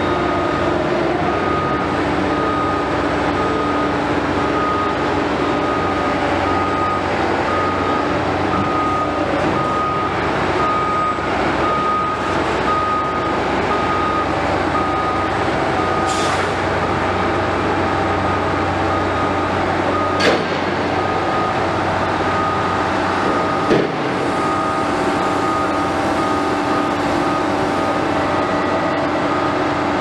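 Heavy construction machinery running steadily, diesel engines droning, with a vehicle's reversing alarm beeping evenly over it. A short hiss comes about halfway through, and two sharp knocks follow a few seconds apart in the second half.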